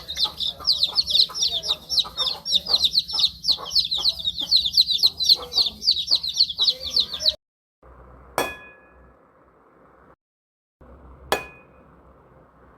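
A brood of chicks peeping rapidly in quick, high, falling chirps, cutting off suddenly about seven seconds in. Then two single ringing clinks, about three seconds apart.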